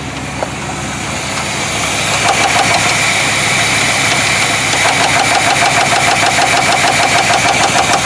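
1973 Chevrolet C10's 350 small-block V8 running, growing louder about two seconds in, with a regular rapid knock pulsing through it. The seller takes the knock for a bad rod bearing. The owner is not sure, because pulling each spark plug wire did not change it.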